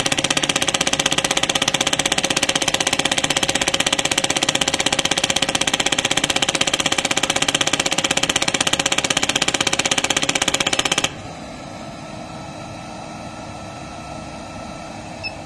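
Shockwave therapy (ESWT) handpiece firing a rapid, even train of sharp taps at 16 shots a second and 100 mJ. It stops abruptly about 11 seconds in, when the preset count of 600 impacts is reached and the treatment ends. A quieter steady hum remains, with one small click near the end.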